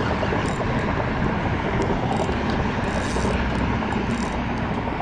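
Steady wind rush on the microphone, with faint, brief scraping and clicking from a spinning reel being cranked as a fish is reeled in.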